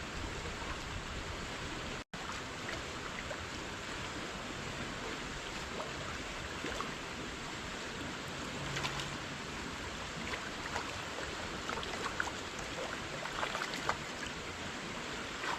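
Steady rush of a flowing trout stream, with a brief dropout about two seconds in and scattered small clicks and taps in the second half.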